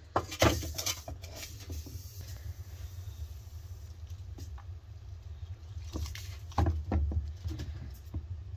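Wooden spatula scraping and knocking against an aluminium pan as lumps of cold butter are pushed around. The clicks and scrapes come in two clusters, in the first second and again around six to seven seconds in, over a steady low rumble.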